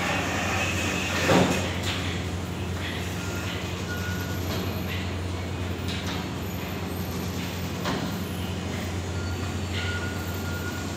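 Automatic roti-making machine running: a steady low motor hum with the rattle of its conveyor belt and dough rollers. Short knocks come every second or two, the loudest about a second in.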